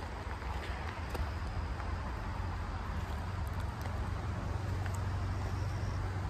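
Steady low wind rumble on a phone microphone outdoors, over an even hiss, with a few faint clicks.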